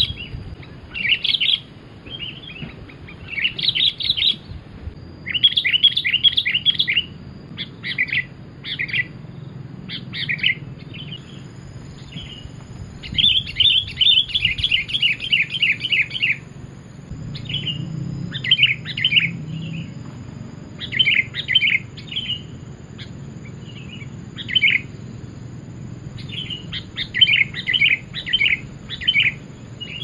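Sooty-headed bulbul (kutilang) calling: short bursts of quick chattering notes, repeated every second or two.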